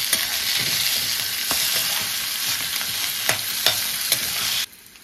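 Holy basil and Indian borage leaves sizzling loudly as they fry in a pan, with a spoon knocking against the pan a few times while they are stirred. Near the end the sizzle drops off suddenly to a faint hiss.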